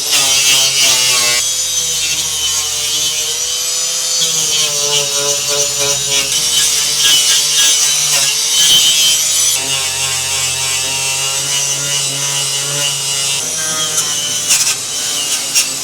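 Angle grinder with a wire wheel scrubbing rust and paint off car bodywork steel: a continuous harsh scratching hiss over the motor's whine, which wavers in pitch as the wheel is pressed on.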